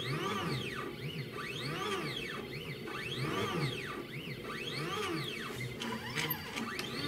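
Stepper motors of a home-built mini CNC machine driving a pen around a plot of circles. They make a whine that rises and falls in pitch over and over as the axes speed up and slow down.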